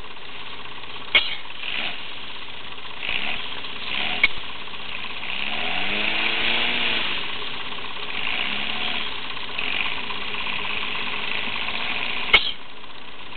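Engines of Westfield and other Seven-style sports cars idling in a queue, with one engine briefly revving, rising and falling in pitch, about six seconds in. Two sharp clicks, one about a second in and one near the end.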